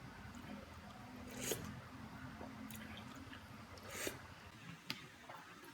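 Close-miked wet chewing of instant noodle soup and rice, faint, with two short louder wet sounds about one and a half and four seconds in.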